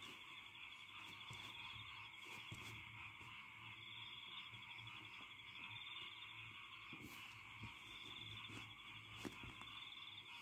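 Near silence: a faint, steady high-pitched trill that swells and fades, over a low hum, with a few soft clicks.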